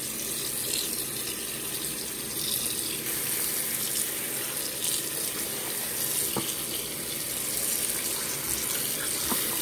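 Bathroom sink faucet running in a steady stream, the water splashing onto a pair of socks held under it as they are soaked.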